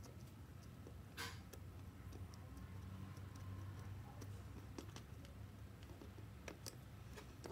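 Faint, scattered clicks and ticks of small parts being handled: a screwdriver at a circuit board's screw terminal and wires being moved about. The clearest is a short scrape about a second in, with a few sharp ticks near the end, over a steady low hum.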